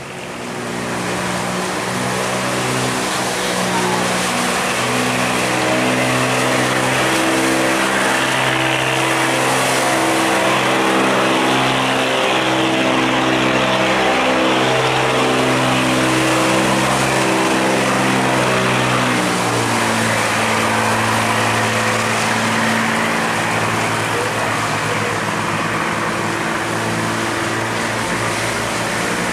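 A steel barge's diesel engine running hard as the barge passes close by, working against the strong current through a sluice gate. Its drone wavers in pitch and changes character about two-thirds of the way through, over the rush of churning water.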